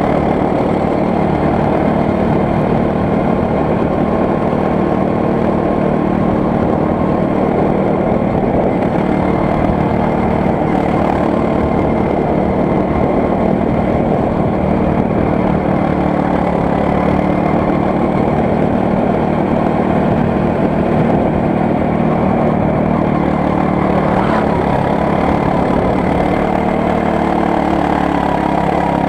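Go-kart engine running continuously at speed, heard onboard from close to the driver: a loud, steady drone whose pitch shifts a little with the throttle near the end as the kart takes a corner.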